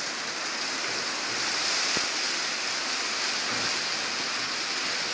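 Steady high hiss of rain falling on the stable roof, with a single faint click about two seconds in.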